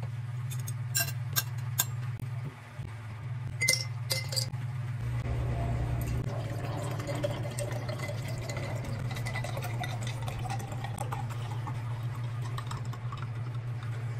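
A few sharp clinks of a spoon, fork and ceramic bowl set down on a table, then juice pouring from a carton into a glass jar from about five seconds in. The pitch of the pour rises slowly as the jar fills. A steady low hum runs underneath.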